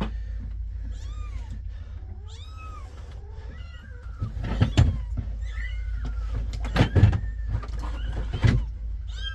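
Kittens mewing over and over in short, high, rising-and-falling cries, with a few loud knocks about halfway through and near the end, over a steady low hum.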